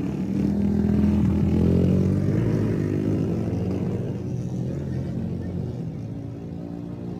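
Tour bus's diesel engine running as the bus draws away. The sound fades gradually and its pitch slowly slides.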